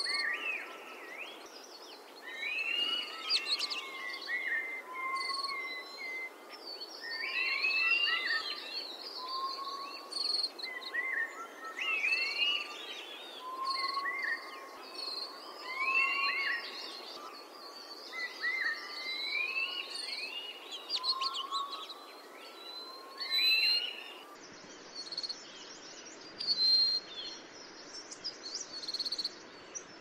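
Golden-naped finch calling: short phrases of high, sweeping notes repeated about every two seconds. About two-thirds of the way through they give way to sparser, higher single notes.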